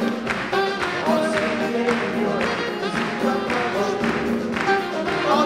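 Live band music with a steady beat, about two strokes a second, in an instrumental passage between the singer's sung lines.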